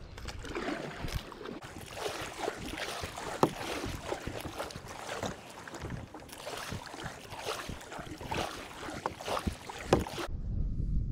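Kayak paddle strokes: the blade dipping and pulling through water among lily pads on alternate sides, with splashing and dripping and a couple of sharp knocks, likely the paddle striking the kayak. The sound cuts off suddenly near the end.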